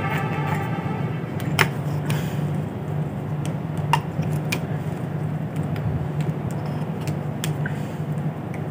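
A steady low mechanical hum, with a few sharp clicks and taps, and a brief pitched tone in the first second.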